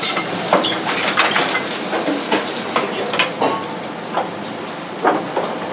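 Clinks and knocks of metal utensils against pans and dishes, irregular and quick, with a few short squeaks over a steady background hiss.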